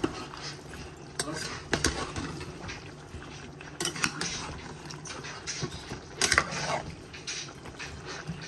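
Metal spoon scraping and clinking against an aluminium pot while stirring chunks of cauliflower and pumpkin, in irregular clatters, the loudest about six seconds in.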